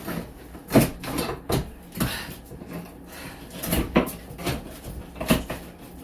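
Irregular knocks and bangs of demolition work on a wall, tools hitting and prying at the wall covering, about eight sharp hits spaced unevenly, with a couple of seconds of lighter rattling in the middle.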